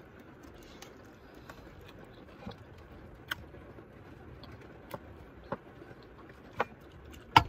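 A person chewing a mouthful of food, with scattered sharp mouth clicks and smacks, the loudest near the end, over a faint steady hiss.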